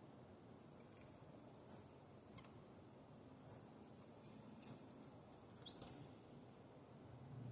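Small birds giving several short, high chirps, spaced irregularly and a second or two apart, over a faint steady hiss.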